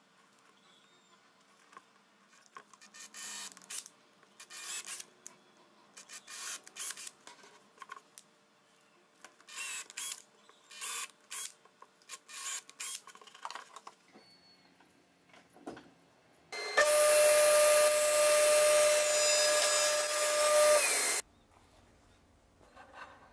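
Cordless drill-driver driving screws into a plywood box in many short trigger bursts, then a power tool motor running steadily for about four seconds with an even whine before it cuts off.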